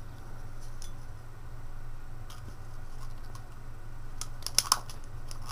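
Thin aluminum soda-can stove pieces handled in the fingers, giving a few faint light clicks, then a quick cluster of sharper clicks about four and a half seconds in.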